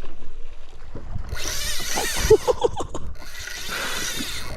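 Fishing reel whirring in three spells of about a second each, with short gaps between, as a hooked fish is played. A few short knocks come around the middle.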